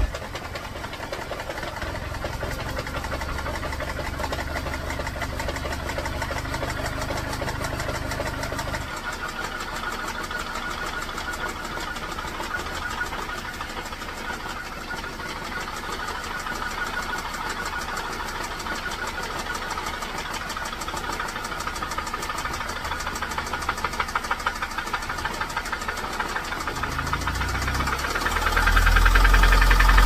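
Ford Focus engine running with a rapid, steady knocking from the bottom end, getting louder as it is revved near the end. This is rod knock from a worn connecting-rod bearing, after the engine was run very low on oil.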